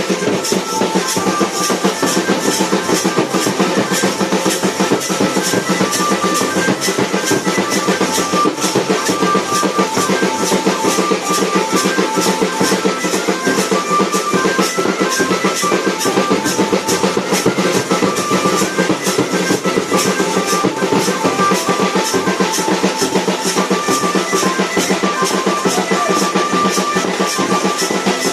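Loud dance music with a steady drum beat and a melody over it, playing without a break.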